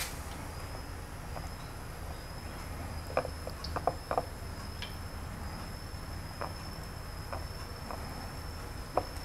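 Hands dredging chicken pieces in flour on a ceramic plate, making a few short soft taps and clicks, most of them between about three and four seconds in and one near the end. Under them is a steady high-pitched whine with a low hum.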